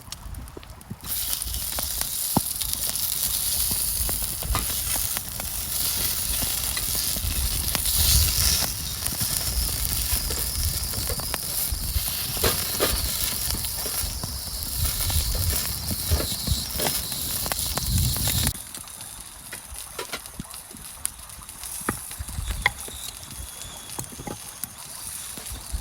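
Food sizzling as it fries, with a dense hiss and scattered crackles and clicks. The sizzle cuts off abruptly about two-thirds of the way through, leaving quieter intermittent crackling and ticks.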